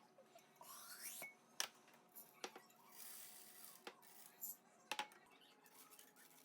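Faint handling sounds: light clicks and knocks of small objects with a few brief rustles, about five clicks in all.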